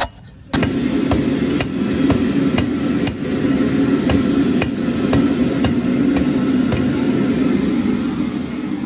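Rhythmic percussion beat of sharp, hammer-like clanks, very evenly about two a second, over a low steady hum, fading away near the end.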